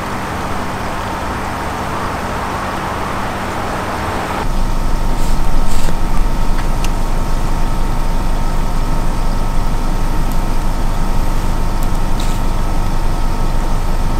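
A steady motor-like rumble, like a vehicle running, that changes abruptly about four and a half seconds in to a louder, steadier rumble with a faint hum on top and a few faint clicks.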